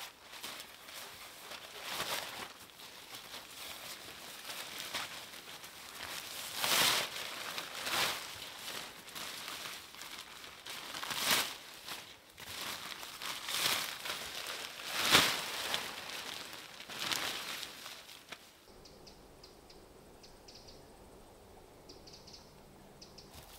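Crinkling and rustling, with about six louder crunches a second or two apart. It stops about three quarters of the way through, leaving a quieter background.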